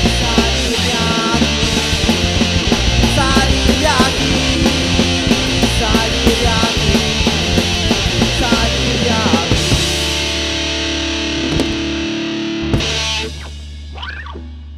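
Punk rock recording with distorted electric guitar and drums playing. About ten seconds in the band holds a final chord, strikes a last hit a little before the end, and the sound rings out and dies away: the song is ending.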